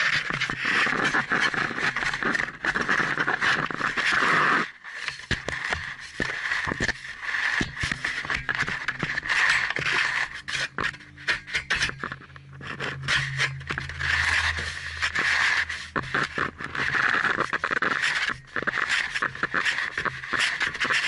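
A camcorder being lowered down a rusty well casing, scraping and knocking against the casing wall: rough, continuous scraping with many small clicks, dropping away briefly about five seconds in.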